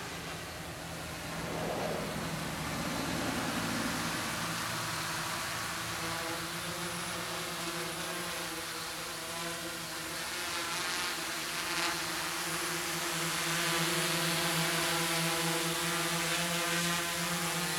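Quadcopter with DYS D4215 650kv brushless motors and 10-inch props: a steady multi-tone propeller hum with a hiss of rushing air above it. It grows louder about two seconds in and again in the second half as the drone comes in low and close.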